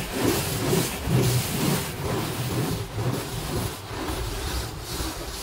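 Water jets of an automatic car wash machine spraying the car all round during the first rinse, which washes off dust. Heard from inside the cabin as a steady hiss of water on the body and glass over a low rumble.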